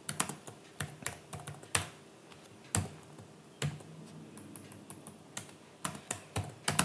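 Typing on a computer keyboard: irregular keystroke clicks with short pauses between them.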